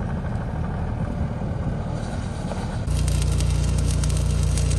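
Uneven low rumbling noise, then about three seconds in, an abrupt change to an engine running steadily, with the dense crackle of a stick-welding arc on a steel pipe fence post.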